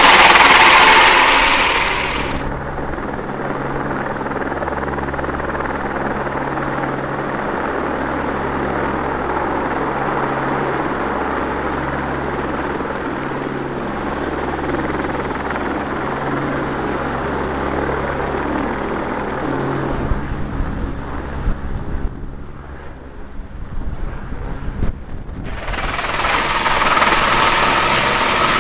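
Eurocopter AS350 B3 Écureuil single-turbine helicopter running loud overhead at the start and again near the end. In between, the same helicopter is heard duller with wind rush, as picked up by a camera riding on the slung load, with a steady low hum and irregular knocks near the end of that stretch.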